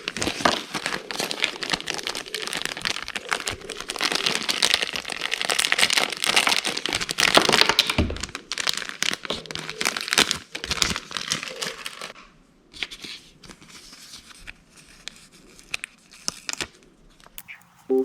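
Packaging of a miniature toy blind box crinkling and tearing as it is unwrapped, dense and continuous for about twelve seconds, then dropping to a few faint clicks and rustles.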